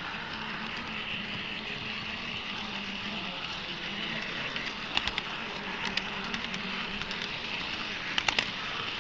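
HO-scale model train running on the layout's track: a steady motor hum, with a few sharp clicks about five seconds in and a quick cluster of clicks near the end.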